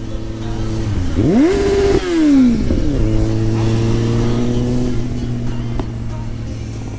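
Motorcycle engine revving hard about a second in, its pitch climbing steeply, holding briefly, then falling away. It then settles into a steady running note that creeps slightly up before easing off.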